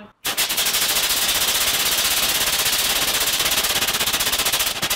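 A 3D-printed Walter-type cold rocket engine firing. Hydrogen peroxide and permanganate react inside it and blast a jet of steam out of the nozzle, making a loud hiss with a rapid crackling sputter. It starts abruptly about a quarter second in and turns choppy near the end.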